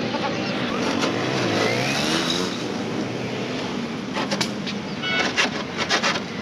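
A motor vehicle's engine running up and rising in pitch as it goes by. In the last couple of seconds this gives way to rapid rasping strokes of a hacksaw on the truck's sheet-metal roof pillar.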